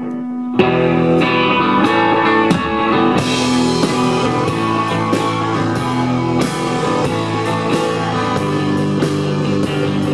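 A live rock band playing a song's instrumental intro: guitar chords, with drums and cymbals coming in about three seconds in.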